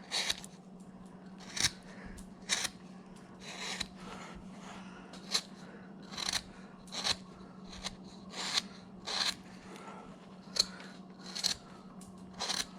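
Hand carving gouge taking short slicing cuts into wood, about fifteen crisp cuts at uneven intervals of roughly a second, removing wood to shape a carved figure's legs.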